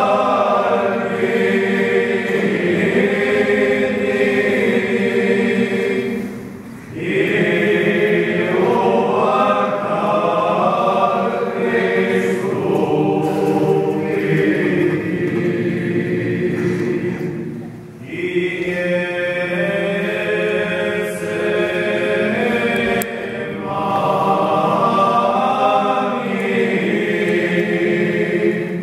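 Traditional church chant sung by a group of voices in long, held phrases. There are short breaks between phrases about a quarter and about two thirds of the way through.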